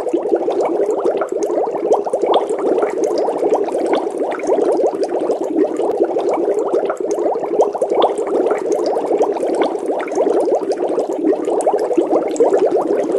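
Water bubbling: a dense, even stream of bubbles gurgling and popping, many quick pops a second without a break.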